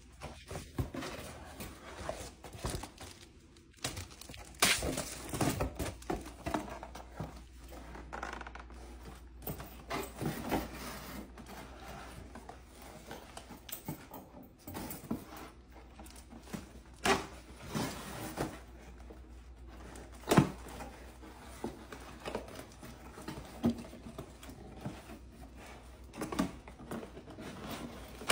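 Cardboard box and paper being handled: irregular rustles, scrapes and knocks as flaps and sheets are pulled and moved, with one sharper knock about two-thirds of the way through. A low steady hum lies underneath.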